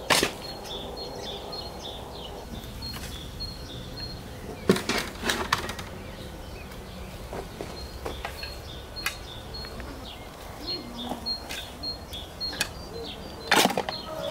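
A spade digging into a red metal wheelbarrow of compost, its blade scraping and knocking on the steel bed in sharp strokes at the start, about five seconds in, and near the end, with lighter knocks between. Small birds chirp in the background.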